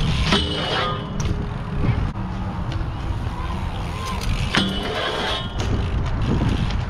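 BMX bike tyres rolling over concrete with steady wind rush, and a brief metallic scrape about a third of a second in as the pegs grind a low steel rail.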